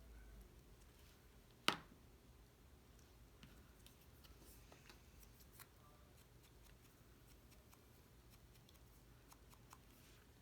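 Near silence with faint rustles and small clicks of cardstock rose petals being rolled up by hand, and one sharp click nearly two seconds in.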